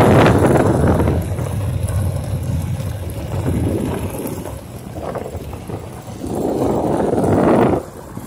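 Wind buffeting the microphone in gusts, loudest at the start and again near the end, where it cuts off suddenly, over the low running noise of a vehicle driving slowly on a dirt road.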